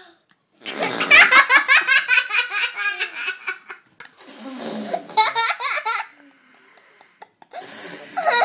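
A young child laughing hard in two long bursts, the first about a second in and the second around four seconds in, with a short quiet pause after it.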